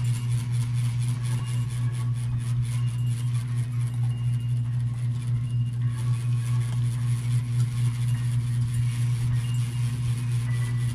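Electric fan running with a steady low hum.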